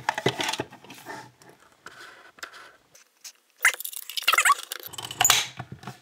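Plastic fire-alarm light housing being handled and pushed back into its plastic back box: scattered light clicks and rattles, then a louder stretch of scraping, squeaky plastic about three and a half seconds in.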